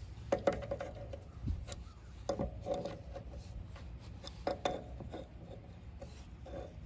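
Several light knocks and scrapes with a brief ringing tone, hard parts or tools being handled, in clusters about half a second, two and a half seconds and four and a half seconds in.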